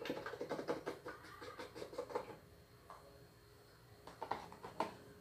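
Faint crackling and light clicks of small cream cartons being squeezed and emptied over a blender jar, then a few light taps about four seconds in as the empty cartons are set down on the counter.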